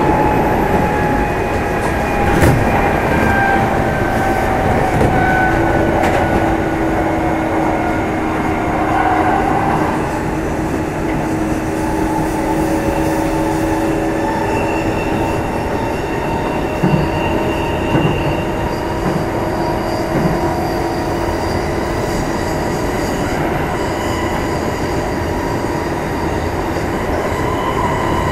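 Kintetsu 2610 series electric multiple unit running at speed, heard from inside motor car Mo 2668: a steady drone of wheels on rail with several steady whining tones from the running gear. A few short knocks come through, about two seconds in and again past the middle.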